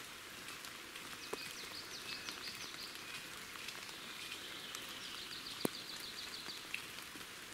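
Steady rain falling, a soft even hiss with scattered drop ticks, one sharper tick just before six seconds in. A high, rapid trill sounds twice, in the middle and again near the end.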